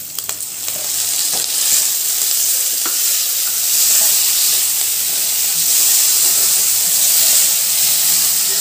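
Chopped tomatoes tipped into hot oil and sautéing onions in a kadai, sizzling loudly. The sizzle swells over the first second and a half, with a few sharp clicks, then holds steady as the tomatoes start to fry.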